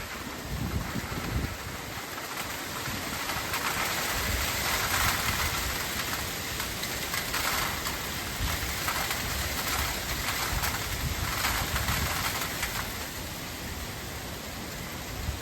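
Heavy rain driven by strong, gusty wind: a steady hiss that swells and eases with the gusts, with low wind rumble on the microphone in the first second or so.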